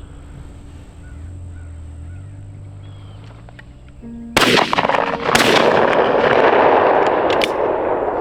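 Quiet outdoor ambience with a few faint bird chirps, then a little over four seconds in loud background music cuts in abruptly and plays on at full level.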